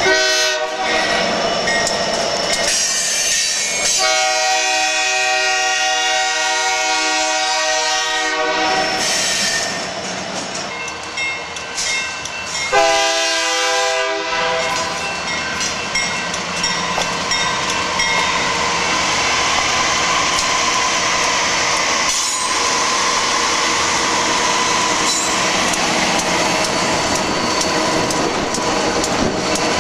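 Nathan AirChime K3-series three-chime locomotive air horn sounding a short blast, a long blast of about four seconds, then another short blast, with the train rolling past afterwards: steady rumble of wheels and clatter over the rail joints.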